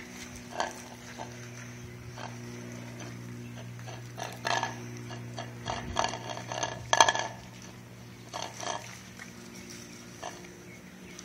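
A dog eating chicken soup from a bowl: irregular bouts of slurping, lapping and chewing, loudest about seven seconds in, over a steady low hum.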